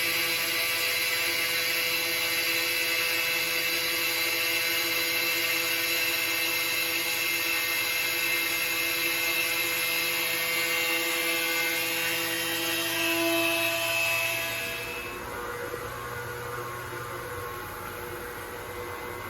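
Neptun Quickmill 160-30 NC CNC glass working center running: a steady machine whine made of several held tones over a strong hiss. About fifteen seconds in it dies away to a quieter hum.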